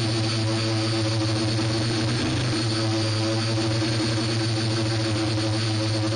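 Electric motors and propellers of a multirotor drone hovering, heard from on board: a steady hum of several pitches with a faint high whine on top.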